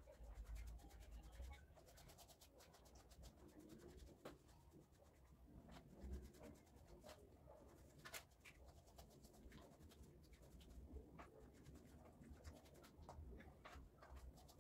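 Faint, irregular scraping and light clicks of paint being stirred in its container to mix in the tint.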